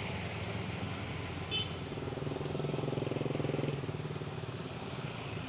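Street traffic passing close: a motor vehicle's engine, most likely a motor scooter, grows louder about two seconds in and fades away a couple of seconds later over a steady background of road noise.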